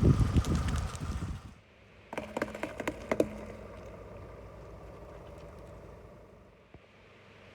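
Objects crunching and crackling as they are crushed under a car's tyres, stopping about a second and a half in. A few sharp snaps follow around two to three seconds in, then only a faint steady low hum.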